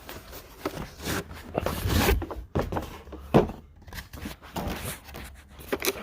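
Handling of a plastic socket set case and its packaging: irregular rustling with scattered clicks and knocks, one sharp click about three and a half seconds in.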